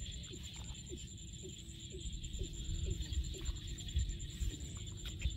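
Hands digging and scooping wet mud in shallow water, with a low rumble of wind on the microphone. Faint background music of short repeated notes and a steady high whine sit underneath.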